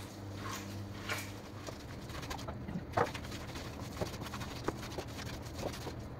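Hands squeezing and kneading minced lamb and beef in an enamel bowl: irregular wet squelches and soft slaps, the loudest about three seconds in.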